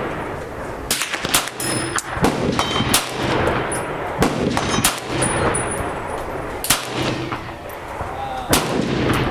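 Smith & Wesson 22A semi-automatic .22 LR pistol fired in slow, irregular succession, about eight sharp cracks a second or two apart, over a steady background hiss.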